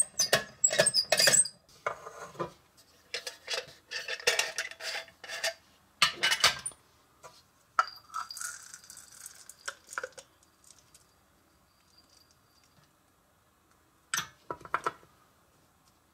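Small metal nut chopper crushing nuts in quick runs of rattling clicks for the first several seconds. About eight seconds in, the chopped nuts rustle as they are poured from a glass jar into a plastic cup. A couple of light knocks follow near the end.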